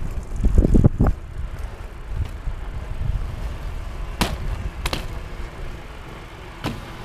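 BMX bike tyres rolling over concrete pavement with a low rumble, then two sharp knocks a little over half a second apart as the bike lands from a hop, and a fainter knock near the end.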